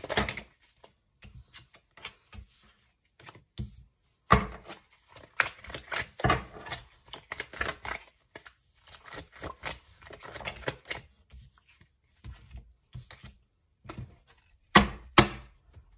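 A Crystal Visions Tarot deck being hand-shuffled, an irregular patter of card flicks and slaps, with cards set down on the table. There are a few louder slaps, two close together near the end.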